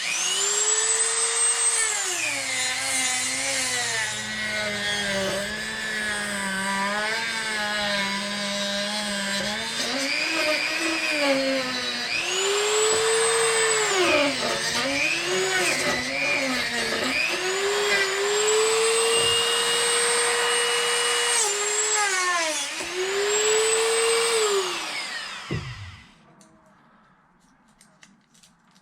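Dremel rotary tool running at high speed while cutting and trimming the RC car's battery tray; its whine drops in pitch as the cut loads it, dips again and again, and climbs back each time it frees up. It winds down and stops about 25 seconds in.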